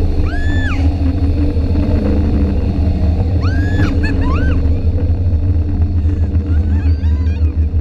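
Steady low rumble of wind on the microphone and the tow boat's engine during parasailing. Short high-pitched squeals cut in three times: about half a second in, around four seconds in, and near the end.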